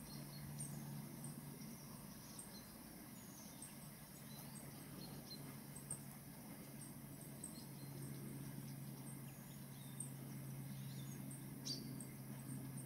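Quiet outdoor ambience: small birds chirping faintly now and then over a steady low hum.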